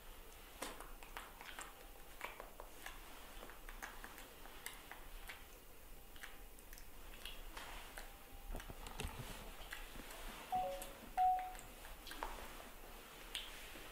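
Faint, scattered soft clicks and rustles from a baby macaque grooming a newborn puppy on a cushion. About ten to eleven seconds in come a few short, high squeaks from one of the young animals; these are the loudest sounds.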